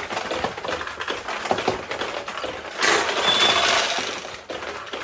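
Steel balls being launched and clattering through the pins of a 1972 Nishijin Model B pachinko machine, a quick run of small metallic clicks. About three seconds in comes a louder rush of rattling balls lasting over a second, with a brief ringing tone.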